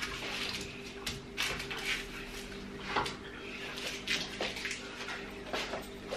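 Scattered light clinks and knocks of kitchen handling, a baking tray and pots and utensils being moved, over a faint steady hum.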